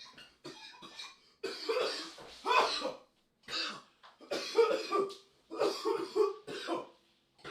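A man coughing hard in repeated fits of several coughs each, choking on a hit from a cannabis vape cartridge.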